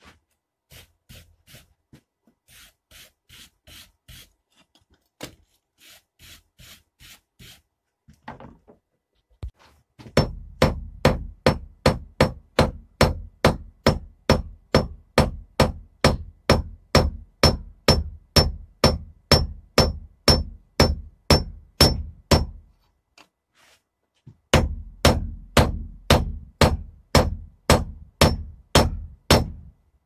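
Blacksmith's hammer forging a plate of hot steel handle stock on an anvil. Light taps at first, then steady hard blows about three a second with the anvil ringing, a short pause, and another run of blows near the end.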